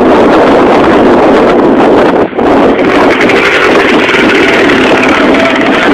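Motocross dirt bike engines running loud as a rider comes down the track, mixed with wind buffeting the phone's microphone, which overloads the recording.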